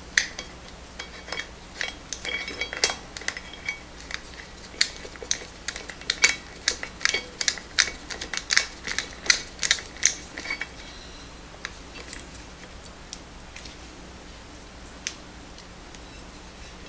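Metal clicks and clinks of an 8 mm Allen wrench working a bolt into the exercise bike's sprocket, two or three sharp ticks a second for about ten seconds, then a few scattered clicks.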